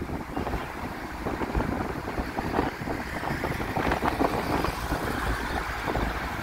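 Bus travelling at speed: engine and road noise, with wind buffeting the microphone.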